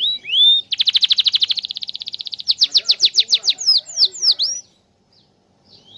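Domestic canary in full song: a rising note, then a long, very rapid trill, then a run of quick descending sweeps and a few slower swooping notes, stopping about three-quarters of the way through.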